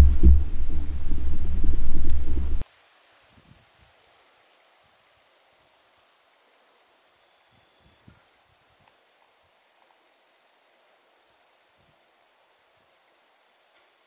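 A loud low rumble for the first two and a half seconds that cuts off suddenly, then insects chirring faintly and steadily in a high, even trill.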